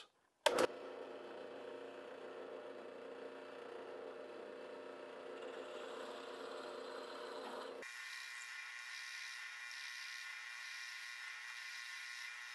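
Drill press running steadily while a Forstner bit bores holes in a laminated oak-and-maple block, with a short click about half a second in. About eight seconds in the sound changes abruptly to a brighter, higher whir.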